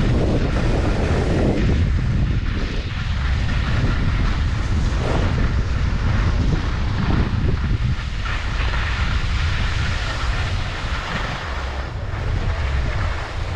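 Wind buffeting the microphone: a loud, uneven low rumble of noise.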